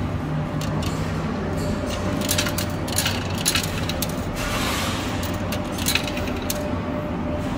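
Peso coins clinking as they drop and slide in a coin pusher arcade machine: a scattered run of short, sharp metallic clicks over a steady machine hum.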